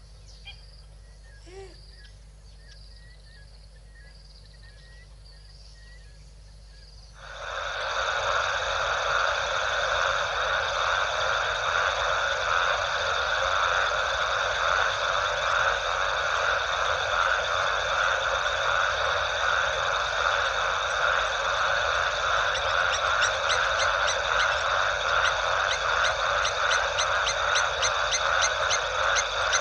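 A few faint bird chirps, then from about seven seconds in a loud, dense night chorus of frogs starts abruptly, many calls in rapid pulses running together.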